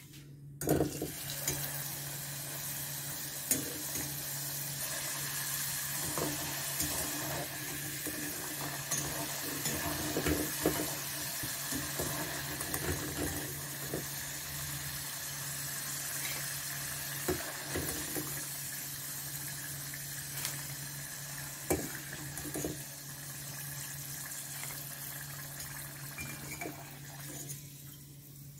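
Potato chips deep-frying in hot oil: a steady sizzle that starts suddenly about a second in and dies away near the end. A metal skimmer stirs the chips and clicks now and then against the stainless-steel pot.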